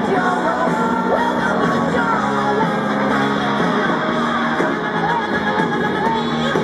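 Rock music with singing and electric guitar playing over a public address system.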